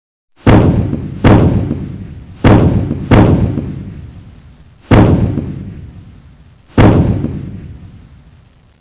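Six heavy, booming impacts from a monster-movie sound-effect track, each ringing out and fading over a second or more, at uneven gaps, the first about half a second in and the last near seven seconds.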